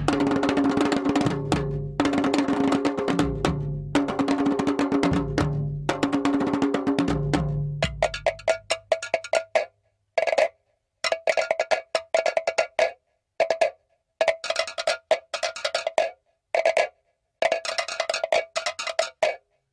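Tahitian drum music: fast drumming over a deep drum that repeats in phrases about every two seconds. About eight seconds in it thins to the rapid, sharp, high-pitched wooden knocking of to'ere slit drums alone, in short runs separated by brief gaps.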